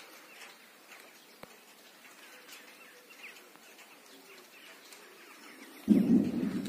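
Faint birds chirping in the background. Near the end, a sudden, louder low rush of noise starts and slowly fades.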